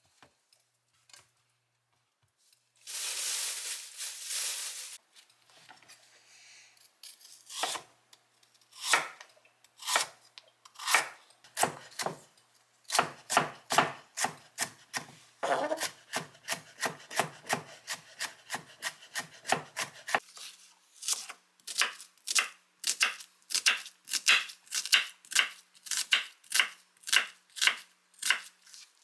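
Knife chopping on a cutting board: a few spaced strokes at first, then a steady run of about two strokes a second. A brief rushing noise about three seconds in.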